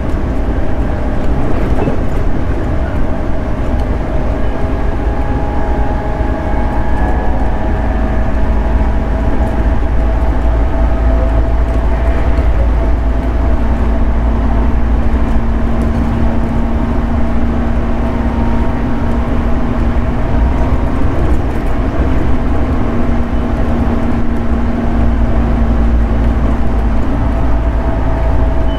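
JR 211 series 5000-number electric multiple unit running steadily along the line, heard on board: a constant loud rumble of the car on the rails with faint steady whining tones under it.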